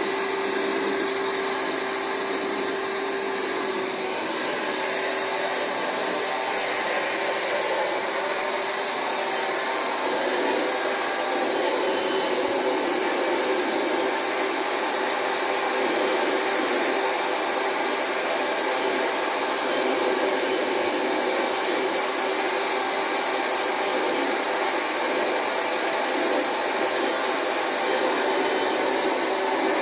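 Rug Doctor carpet extractor running steadily: its vacuum motor gives a constant high whine over a rushing suction noise.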